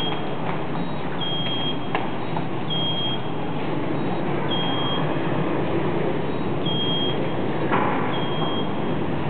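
Wall-mounted electronic attendance card reader giving a short, high single beep each time a student taps a card to clock in, five beeps at uneven intervals over steady background noise. A sharp knock comes about a second and a half before the end.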